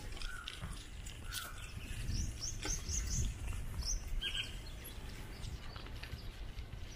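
Birds chirping: a quick run of five or six short, high chirps about two seconds in, with scattered chirps and calls either side. Under them a steady low rumble runs from the ride.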